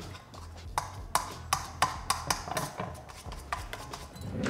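A small fork mashing anchovy fillets into egg yolks in a stainless steel bowl, its tines tapping and scraping the metal in a string of irregular clicks, two or three a second.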